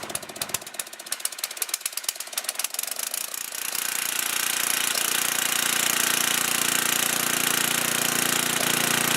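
Homelite generator's 10 hp Tecumseh engine running with its new carburetor, just after a full-choke start. It fires in separate, uneven strokes at first, then about three and a half seconds in it gets louder and settles into a steady, even run.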